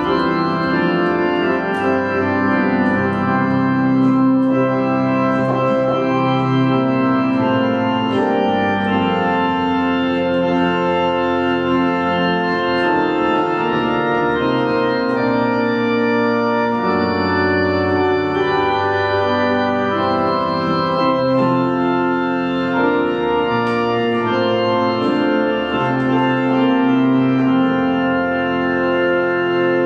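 Organ playing a hymn tune in slow, held chords that change about every second.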